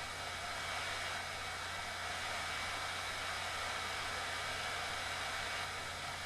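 Hot air wand of an 853D rework station blowing a steady rush of air, as used to heat threaded inserts into 3D-printed plastic.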